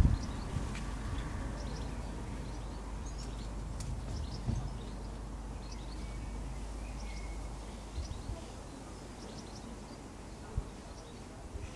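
Garden ambience: a steady low rumble with faint, scattered short bird chirps. A few soft knocks come after the middle and near the end.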